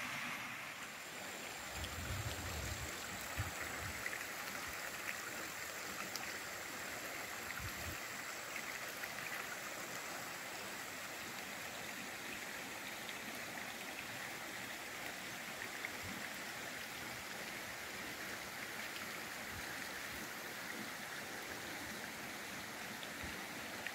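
Steady rushing of a stream's running water, an even sound with no pauses. A few soft low thumps come about two to four seconds in.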